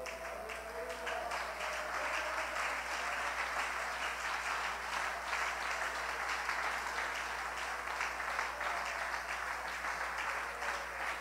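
Church congregation applauding: a steady, dense patter of many hands clapping that swells about a second in and keeps going.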